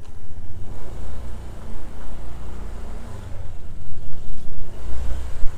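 Wind buffeting the microphone of a phone mounted on a moving Honda Click scooter, a loud low rumble that swells and drops unevenly, with the scooter running underneath.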